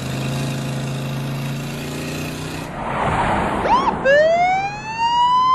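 A vehicle engine running steadily, then a police car siren gives a short whoop about four seconds in and winds up into a rising wail.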